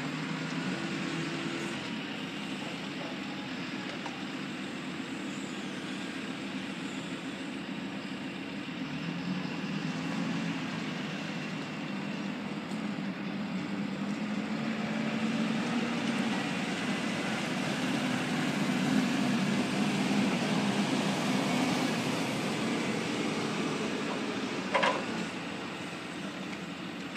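JCB wheel loader's diesel engine working under load as its round-timber grab lifts logs from a timber lorry, the engine note rising and falling and growing louder through the middle. A short sharp sound cuts in near the end.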